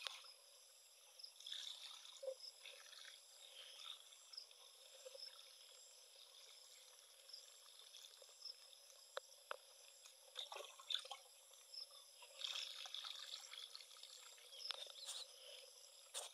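Faint pouring and trickling of liquid fertilizer mix from a small dipper into a knapsack sprayer tank, in a few short spells with small handling clicks between them.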